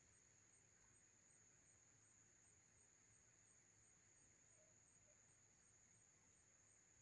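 Near silence, with a faint steady high-pitched tone and a faint pulse just above it, about three times a second.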